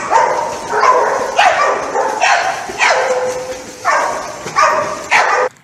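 A dog barking over and over, about eight short barks, stopping abruptly near the end.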